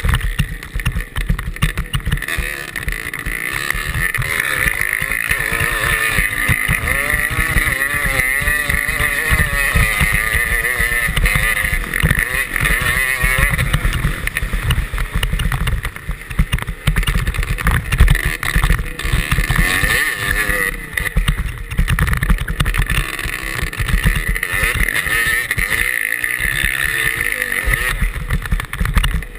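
Motocross bike engine running hard from an onboard camera, its revs rising and falling as the rider works the throttle, with wind buffeting the microphone.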